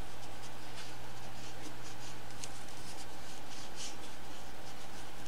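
A cotton swab rubbing around a small metal skateboard ball-bearing ring to clean it: soft, irregular scratchy strokes, several a second, over a steady low hum.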